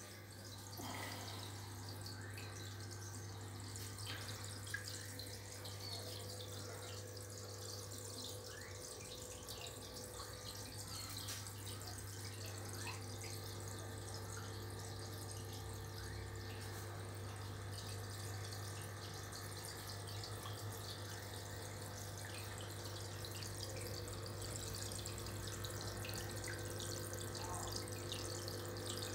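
Aqua One Maxi 103f internal aquarium filter running: a steady trickle and splash of moving water over a low, steady hum.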